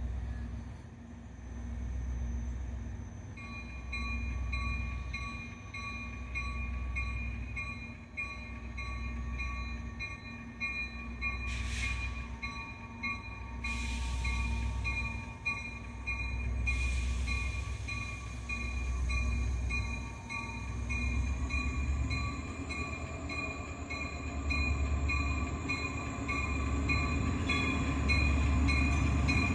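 Diesel locomotive running slowly toward the listener, its low engine rumble swelling and easing and getting louder near the end, while its bell rings steadily from a few seconds in. A few short hissing bursts come in the middle.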